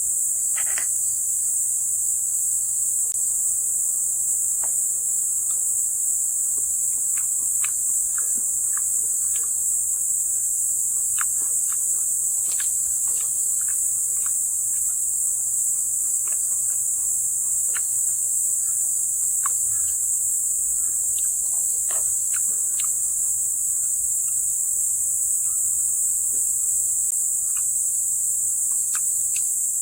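Crickets chirping in a dense, steady, high-pitched chorus, with scattered faint clicks underneath.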